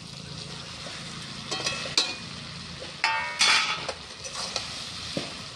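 Fried soya chunks and potato pieces tipped from a steel bowl into a kadai of frying spice masala, sizzling steadily, with sharp metal clanks and a loud ringing scrape of metal on metal a few seconds in.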